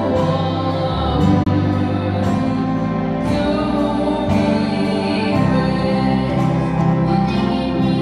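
Live gospel music: an organ holds sustained chords that change every second or two, while a woman sings into a microphone over it.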